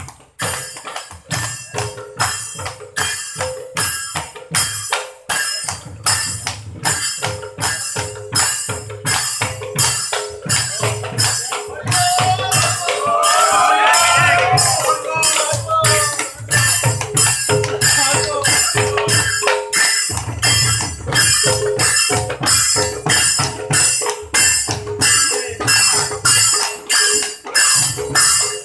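Devotional music: hand cymbals clashed in a steady, fast rhythm over a low drum beat, with a group of voices chanting briefly near the middle.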